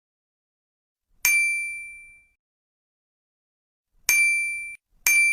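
A small metal bell, like a desk bell, struck three times with a bright ding. The first ring dies away over about a second. The other two follow close together near the end and are cut short.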